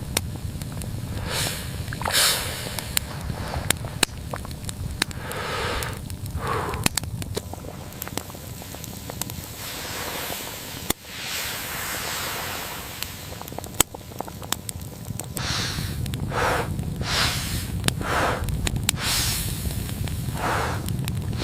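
Wood fire crackling, with irregular sharp pops over a steady low rumble and short swishing, crunching sounds scattered through.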